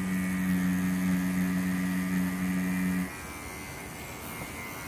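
Wireless rotary tattoo pen machine running with a steady hum as its needle draws lines on synthetic practice skin, stopping about three seconds in.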